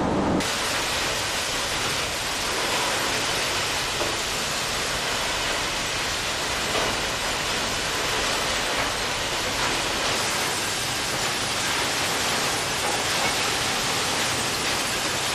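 Shredded car-residue granulate falling in a steady stream onto a heap, a loud even hiss with no rhythm, starting abruptly about half a second in.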